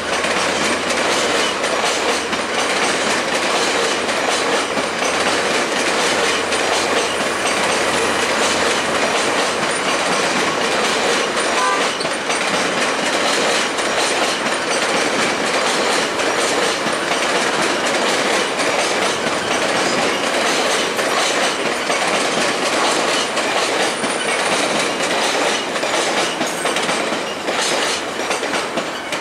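Stainless-steel passenger cars of VIA Rail's The Canadian rolling past, wheels clattering over the track in a dense run of clicks. The sound eases slightly near the end as the last car goes by.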